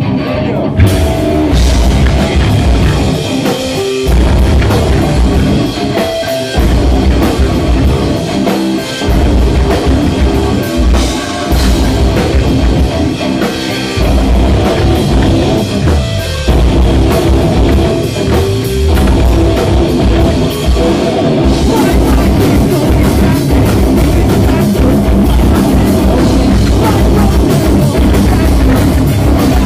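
Live heavy rock band playing loud in a djent style: electric guitars and drum kit, with the heavy low end cutting out briefly a few times in abrupt stops.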